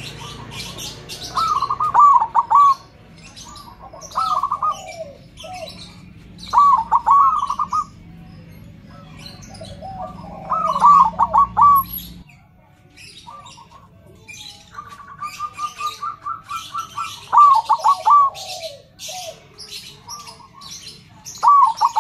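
Zebra dove (perkutut) cooing: phrases of quick bubbling coos repeated every two to three seconds, one led in by a fast run of short notes about two-thirds through. Small birds chirp in the background.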